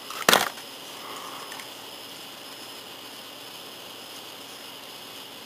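A single sharp plastic click as small snap-fit parts of a toy figure are pressed together, followed by steady background hiss.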